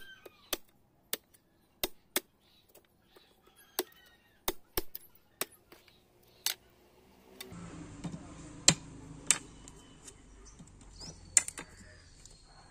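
Curved blade chopping into the top of a husk-trimmed tender coconut to open it: a run of sharp, separate strikes, then a few louder chops in the second half over a rise in background noise.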